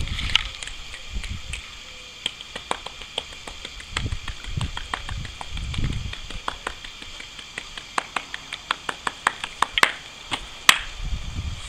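A series of sharp, short clicks, scattered at first and then coming in a quick run near the end, with one louder click at the very end, over a few low rumbles in the middle.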